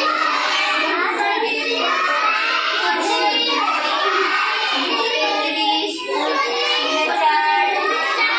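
A group of young children's voices chanting together in a sing-song, as when reciting lessons aloud, steady throughout with a brief dip about six seconds in.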